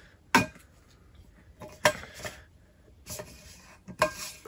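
About five sharp plastic clicks and knocks, spread out with quiet between them, from the lid and straw of a 40-ounce insulated tumbler being handled and taken apart.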